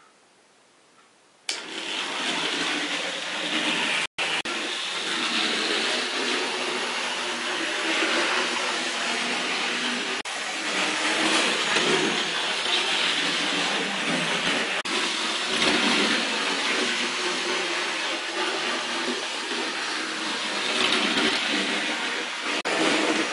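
Tri-ang OO gauge model Class 31 diesel locomotive running on track: its electric motor whirring and wheels rolling on the rails. The sound starts suddenly after about a second and a half of near silence and then runs steadily, with a momentary break about four seconds in.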